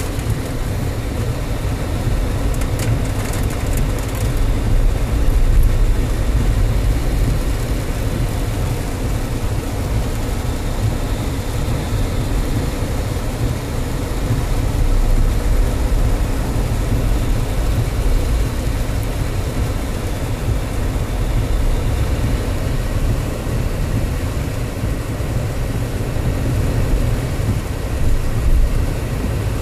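A car driving through heavy rain on a flooded road, heard from inside the cabin: a steady low rumble of engine and tyres under an even hiss of rain and water spray.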